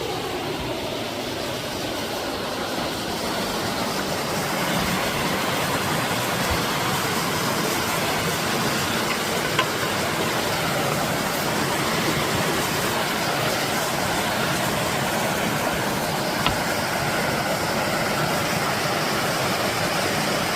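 Steady rush of a mountain stream's waterfall, a little louder after about four seconds, with two brief clicks partway through.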